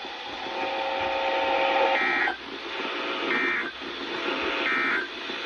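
NOAA Weather Radio Emergency Alert System end-of-message data bursts heard through a radio receiver: three short, buzzy digital tone bursts about a second and a half apart, over radio hiss, marking the end of the warning message. A steady tone sits under the hiss before the first burst.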